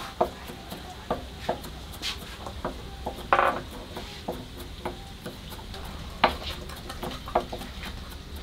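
Knife chopping red chilies on a wooden cutting board: irregular sharp knocks a few times a second, with one louder clatter about three seconds in.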